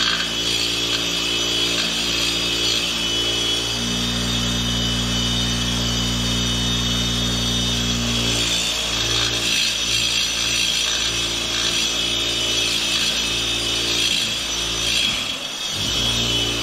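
Bench grinder motor running with a steady hum while a carbide-tipped stump grinder tooth (Rayco 1100 series Green Tooth) is held against the spinning wheel, a continuous grinding hiss over the hum.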